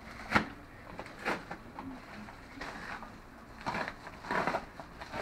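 A padded paper mailer envelope being torn open by hand: several short rips and crinkles, the first the loudest.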